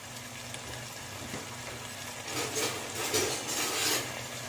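Vegetables frying softly in a pot. From about two to four seconds in comes a louder run of scraping and rustling as a wooden spatula moves them around.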